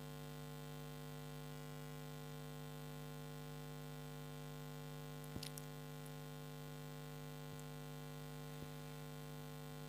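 Faint, steady electrical mains hum in the recording, with a single faint click about five seconds in.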